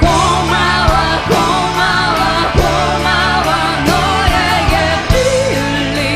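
Live rock band playing: drum hits and steady bass under a lead melody that wavers in pitch.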